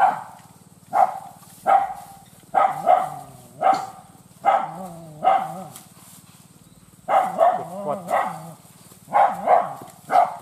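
Hunting dog barking in quick runs of short, sharp barks, about fifteen in all, with a pause of a second or two in the middle.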